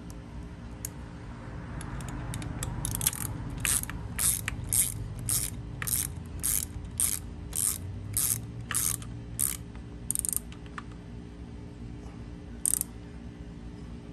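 Socket ratchet clicking as it runs down the bolt holding the ground wires on an outboard's starter: a steady series of back-swings, about two a second for several seconds, then one more near the end.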